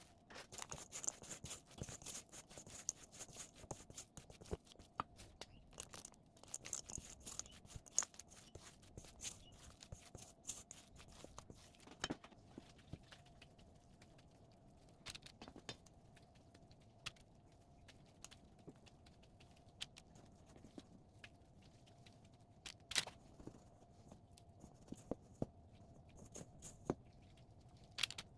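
Scattered light clicks and taps from handling things, thicker in the first half, with a few sharper knocks about 12 and 23 seconds in, over a faint steady hum.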